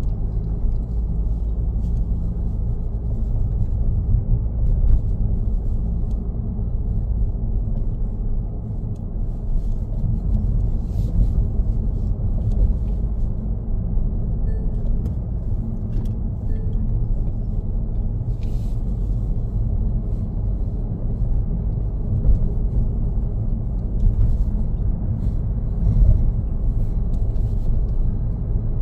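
Steady low rumble of a car driving along a road: engine and tyre noise at an even speed, with a few faint clicks.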